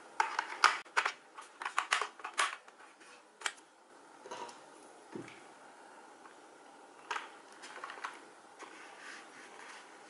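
Plastic battery-compartment cover on the underside of a keyboard being clicked into place: a quick run of sharp clicks and clacks over the first couple of seconds, then a single click. After that, faint handling with a knock a few seconds later as the keyboard is turned over.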